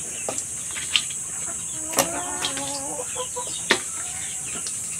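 A hen clucking, a short run of notes about two seconds in, over a steady high chirring of insects, with a few sharp clicks scattered through.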